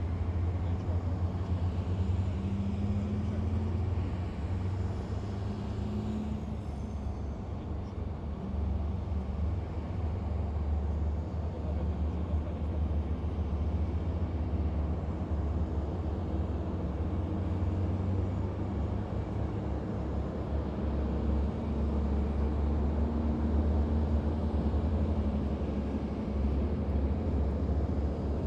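A column of heavy military vehicles driving past, their engines making a continuous low rumble.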